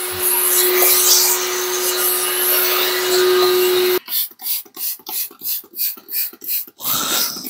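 A shop vacuum runs with a steady hiss and hum, its nozzle working over a dirty rubber step mat. It cuts off suddenly about four seconds in. Then a trigger spray bottle squirts cleaner in quick sprays, about three a second.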